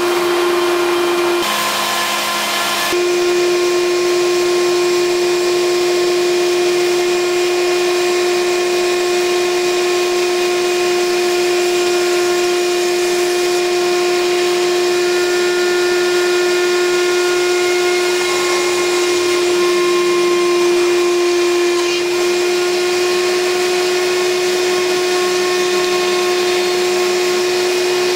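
A CNC router's spindle motor running with a steady high-pitched whine, alongside the rushing of a vacuum cleaner drawing off the dust at the cutter. About two seconds in, the hiss briefly gets brighter and the whine dips for a second or so.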